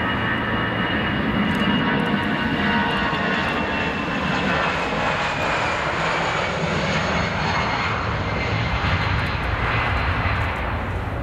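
Croatia Airlines Airbus A320-family airliner's twin jet engines at takeoff power during its takeoff roll: a steady, loud roar with a high whine that slowly drops in pitch, easing a little near the end.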